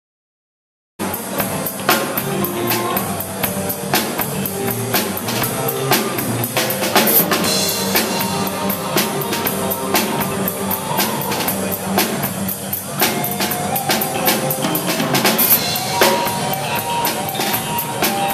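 Live student band playing, led by a drum kit with dense, steady beats and cymbal hits, with electric bass and other pitched parts underneath. The music cuts in suddenly about a second in.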